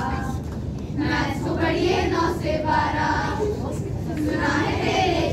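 A group of schoolchildren singing together in unison.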